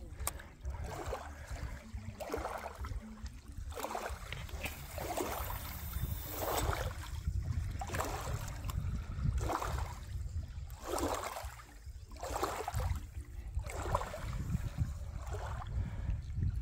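River water lapping in a slow rhythm, one swish about every second and a half, over a steady low rumble.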